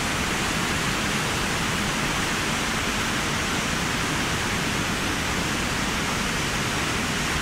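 Rhine Falls waterfall thundering at close range: a huge volume of water, up to 900,000 litres a second, crashing over the rocks in a steady, even rush of noise.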